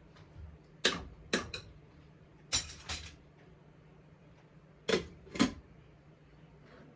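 Kitchenware being handled: three pairs of short, sharp knocks, the two in each pair about half a second apart, over a low steady hum.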